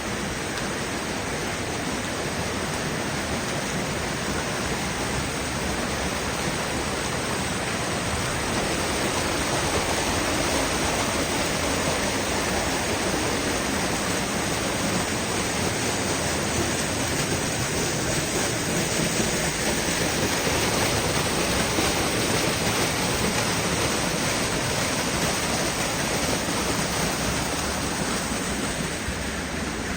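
Steady rush of a waterfall and creek in the canyon, a little louder through the middle.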